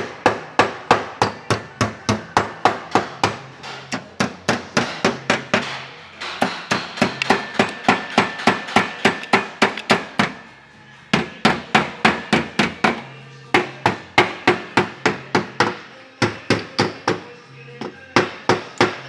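Hammer tapping rapidly on a car's sheet-metal body panel, about four or five blows a second, in runs with short pauses, as a dent is worked out.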